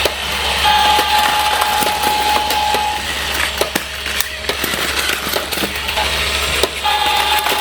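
Plarail battery-powered toy train clattering along plastic track with quick irregular clicks, while the toy crossing set's electronic sound effect plays a held tone twice: about a second in for two seconds, and again near the end.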